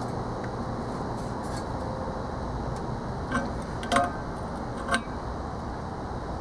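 Adjustable wrench working the set screw on a squirrel-cage blower wheel's hub, loosened a little and retightened to seat it on the flat spot of the motor shaft: three light metallic clicks in the second half.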